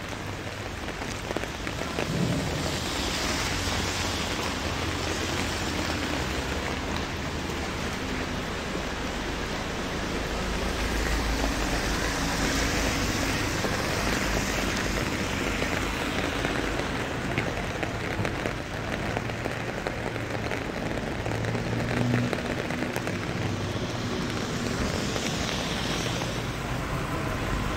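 Steady rain falling, a continuous hiss that swells louder a few times.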